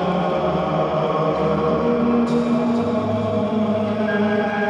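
Ambient soundscape music of held, choir-like chanting tones, the chord shifting every second or two.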